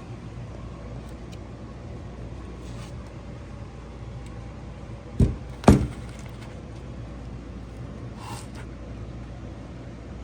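Two sharp knocks about half a second apart, a little past halfway, as the chrome-and-plastic corner light assembly is handled or set down, over a steady low hum.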